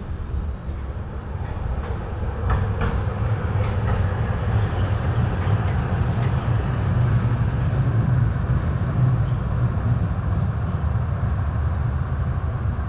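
Tram running on street track: a steady low rumble of motors and wheels that builds over the first few seconds, with a few sharp clacks of the wheels about two and a half to four seconds in.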